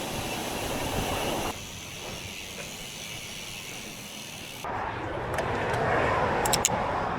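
Steady rushing wind and road noise from riding a bicycle, changing abruptly about one and a half and four and a half seconds in.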